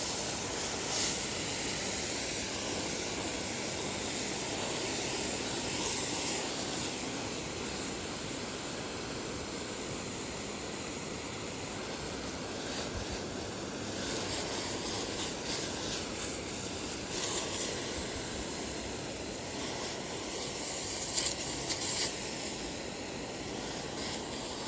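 Steady hissing noise, with several brief rustles or crackles scattered through it.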